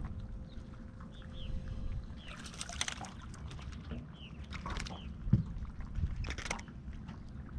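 A small crappie splashing back into the lake beside a jon boat, over low water sloshing, followed a couple of seconds later by a plastic bait bag crinkling.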